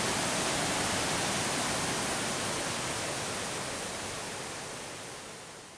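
Steady rush of water from a small waterfall and stream, fading out near the end.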